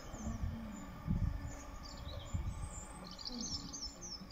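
Small birds chirping in short, high calls that slide up and down, over a low, uneven rumble of outdoor noise.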